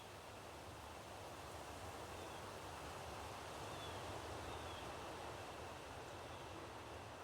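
Wind rushing through leaves, a faint, even rustle that swells a little midway, with a few faint short bird chirps.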